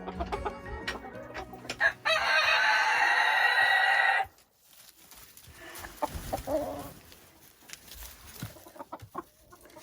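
Silkie rooster crowing once, a loud call held for about two seconds starting about two seconds in, followed by soft, scattered clucking from the hens.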